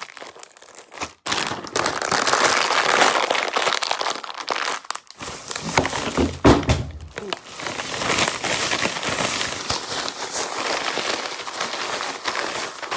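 Plastic bags crinkling and rustling as they are handled, with mixed nuts being shaken about in a zip-top bag. It is loudest about six to seven seconds in, where there are some dull knocks.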